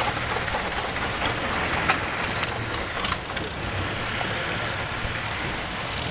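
Long-tail boat engine running steadily under way, with water rushing and splashing along the hull. A brief sharp knock about two seconds in and a couple more around three seconds.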